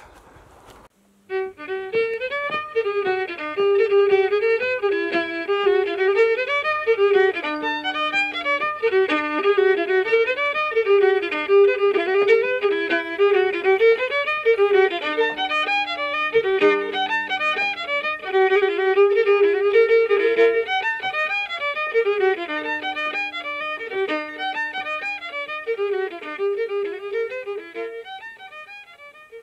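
Background music: a fiddle playing a tune in quick, short notes with phrases that repeat, starting about a second in.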